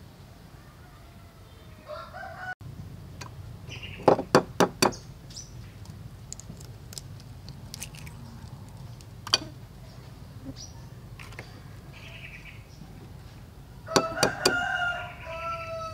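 A rooster crowing, one call of about two seconds near the end, with a shorter chicken call about two seconds in. Four sharp knocks a little after four seconds and a few more near the end, boiled eggs being tapped against the table to crack their shells.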